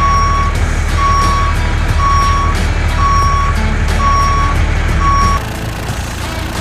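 Truck reversing alarm beeping six times, about once a second, over a low engine rumble; both cut off about five seconds in.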